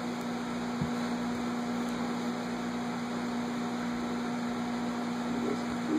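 Steady room hum: a constant low electrical or mechanical drone over a faint even hiss, with no speech.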